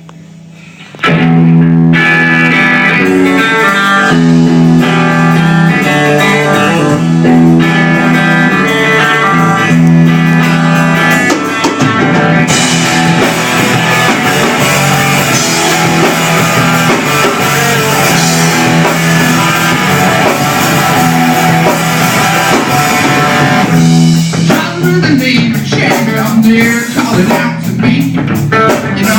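Live rock band playing an instrumental passage led by guitar with a drum kit. It starts about a second in and fills out from about twelve seconds in.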